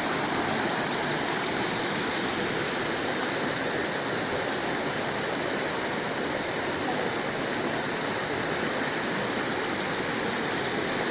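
Hill river flowing: a steady, unbroken rush of water.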